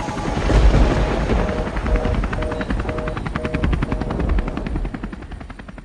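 Channel intro stinger of music and sound effects: a deep boom about half a second in, then a fast, even chopping pulse under a short two-note tone repeated about twice a second, fading out near the end.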